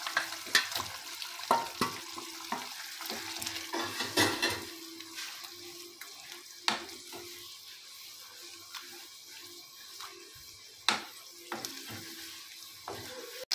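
Fried chicken pieces being stirred into a sizzling masala gravy in a steel pan, the spoon now and then knocking and scraping against the pan. The sizzle eases off a little after about five seconds.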